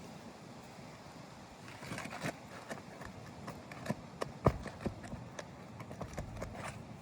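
Irregular knocks and taps with light scuffing, the loudest about four and a half seconds in.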